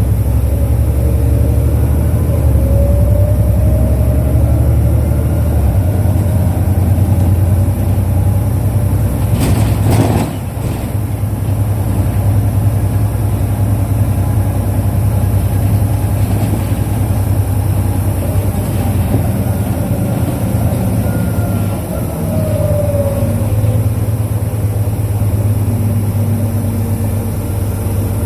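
Running sound of a 2005 Isuzu Erga KL-LV834L1 non-step city bus heard from inside the cabin: a steady low engine drone while driving. About ten seconds in there is a single sharp knock, and the engine sound drops a little after it. Faint rising whines come and go.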